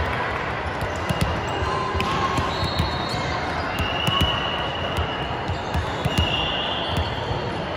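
Busy sports-hall din in a gymnasium: balls thudding on the hardwood floor, a few short sneaker squeaks, and the chatter of players and spectators, echoing in the hall.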